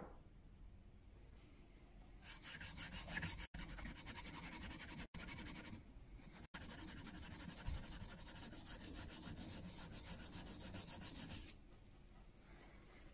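The steel back of a Marples chisel rubbed in rapid back-and-forth strokes on a diamond sharpening plate, a steady rasping scrape. This is lapping, flattening the chisel's back. It starts about two seconds in, has a few very brief gaps, and stops shortly before the end.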